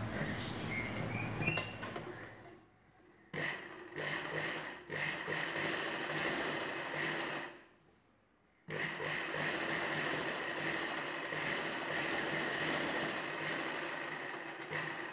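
Ralson sewing machine running as it stitches down the middle of a double-folded fabric strip. It stops and starts a few times, with longer pauses about three seconds and about eight seconds in.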